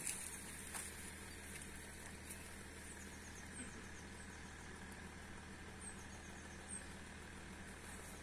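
Faint outdoor ambience: a steady low hum with a few short, high chirps scattered through the middle.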